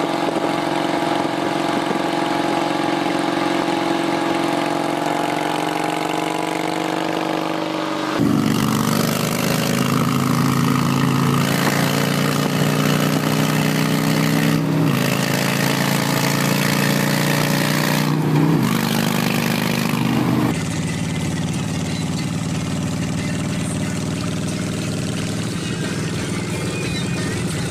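Harley-Davidson V-twin motorcycle exhausts at cruising speed in three cut-together clips: a custom Softail Deluxe, then a Fat Boy from about 8 seconds in, the loudest, then a Nightster 1200 after about 20 seconds. Each is a steady pitched exhaust note that rises and falls slightly with the throttle.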